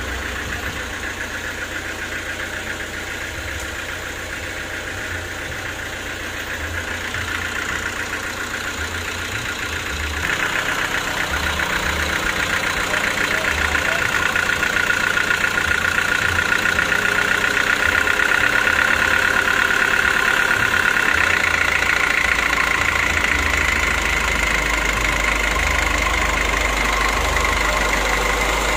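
Sawmill's belt-driven diesel engine running steadily. It grows louder about ten seconds in and stays at the higher level.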